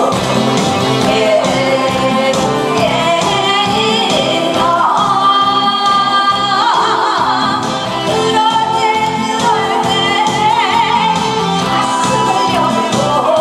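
A woman singing into a microphone over amplified musical accompaniment with a steady beat, holding a long note about halfway through.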